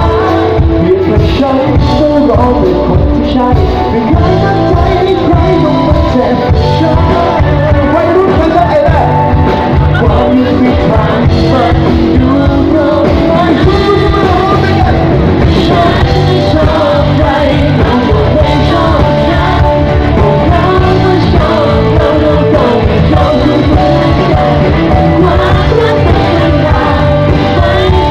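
A live rock band playing loudly: a male singer with acoustic guitar, backed by electric guitars and drums.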